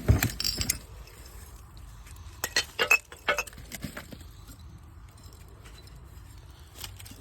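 Glass jars and bottles clinking against each other as they are handled and moved about: a cluster of sharp clinks at the start, another about two and a half to three and a half seconds in, then mostly quiet with a single clink near the end.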